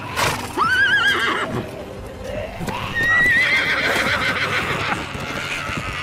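Horses whinnying: a wavering call starting about half a second in, then a second, longer one about three seconds in, over steady background noise.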